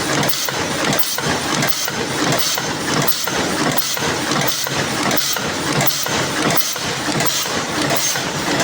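Paper cup forming machine running, its mechanism cycling in a steady repeating clatter.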